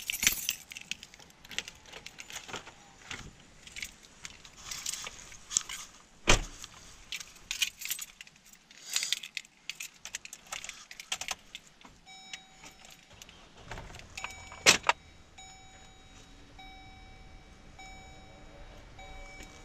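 Small fishing tackle clattering and rattling in a box as the soft-plastic lure is changed, with sharp knocks about six and fifteen seconds in. In the last several seconds the rattling stops and a faint steady tone comes and goes in short dashes.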